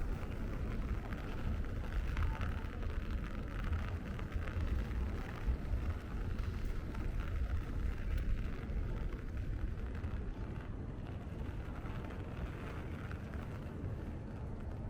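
Steady rainy city-street ambience: a low rumble of passing traffic under an even hiss of rain.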